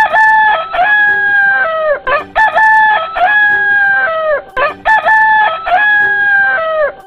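Rooster crowing three times in a row, each crow a few short notes ending in a long held note that falls away at the end.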